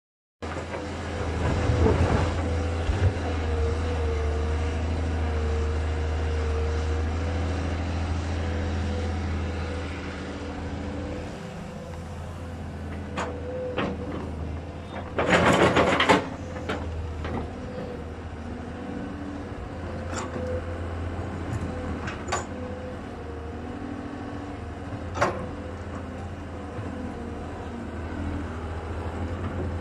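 Tracked hydraulic excavator digging and moving earth: the diesel engine runs under load with a steady hydraulic whine, louder for the first ten seconds. Scattered clanks and knocks come from the bucket and rock, with a loud rattle of earth and stone about halfway through.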